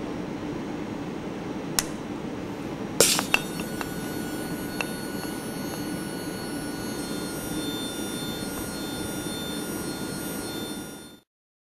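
Electric buzzer sealed inside a bell jar, over a steady low hum: a few sharp clicks as the tubing clamp is released about three seconds in, then the buzzer's thin steady whine comes through. From about seven seconds it gains higher overtones as air flows back into the jar and carries its sound again.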